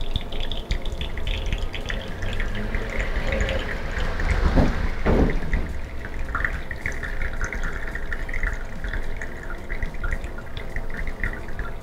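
Espresso trickling steadily from an ARCO manual lever espresso maker's portafilter into a small glass cup as the shot is pulled under lever pressure. Two soft low knocks about midway.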